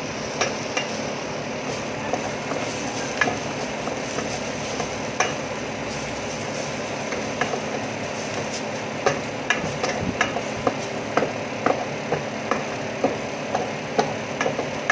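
Minced ginger, onion and garlic sizzling in oil in a stainless steel pot, stirred with a wooden spatula that knocks and scrapes against the pot. The knocks come more often after the first half. A steady low hum runs underneath.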